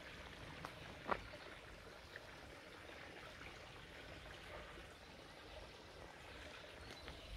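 A small mill stream running with a faint, steady trickle, and a single sharp click about a second in.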